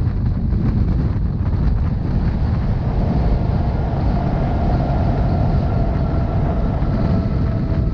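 Rhaetian Railway narrow-gauge train running along the track, heard from on board as a steady low rumble. About three seconds in, a faint steady whine joins it and holds.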